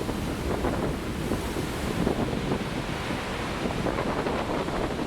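Heavy winter storm surf rolling in and breaking, a steady rush of water, with wind buffeting the microphone.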